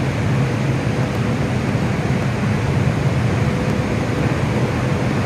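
Steady, even machinery drone on a ferry's enclosed vehicle deck, low-pitched, with a faint steady tone above it.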